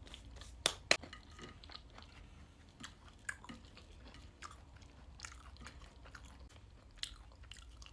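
A person chewing crunchy oven-cooked food with the mouth close to the microphone: irregular crunches and wet mouth clicks, the sharpest about a second in.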